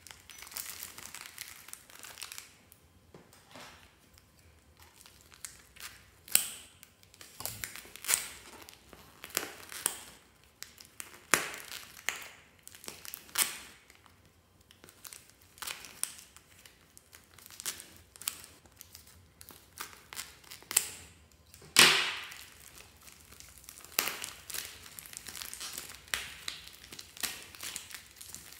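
Thin plastic wrappers on a bundle of soft clay packs crinkling and rustling as they are handled, cut open with scissors and peeled off. Irregular sharp crackles and snips stand out over the rustle, the loudest about two-thirds of the way through.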